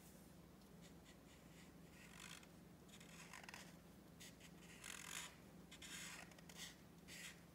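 Scented felt-tip marker scratching across paper in faint, short colouring strokes, several in a row at uneven intervals.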